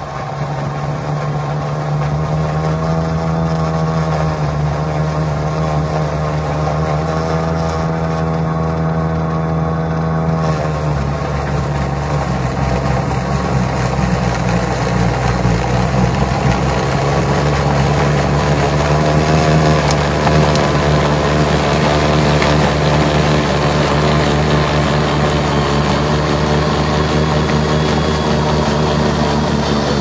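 A POWERSMART 80V battery-powered dual-stage snowblower running under load as its auger and impeller chew through and throw wet, slushy snow. It gives a steady hum whose pitch shifts about ten seconds in.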